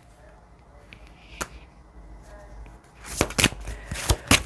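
Cards being shuffled and handled: one sharp snap about a third of the way in, then a quick run of slaps and clicks over the last second and a half.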